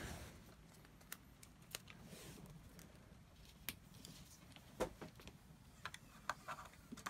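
Faint handling sounds: a roll of PVC electrical tape and the plastic battery cases being handled, with a few light clicks and rustles, the clearest about five seconds in.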